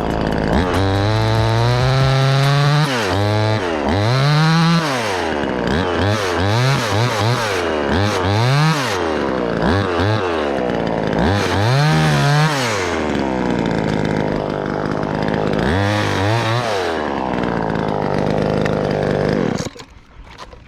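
Chainsaw running, its engine speed rising and falling over and over, then cutting off near the end.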